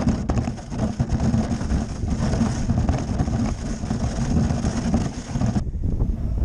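Plastic sledge being towed over snow, heard through a camera mounted on it: a continuous scraping rumble from its hull sliding over the snow, with a few bumps. About five and a half seconds in, it cuts abruptly to a duller rumble.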